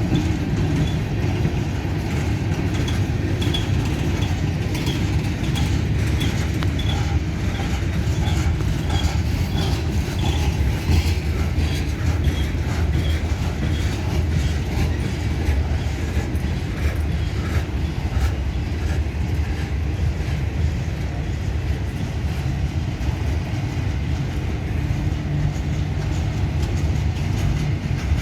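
CSX freight train rolling slowly past at about 10 mph, a steady low rumble of wheels on rail. For the first dozen seconds a faint high ringing tick repeats about twice a second.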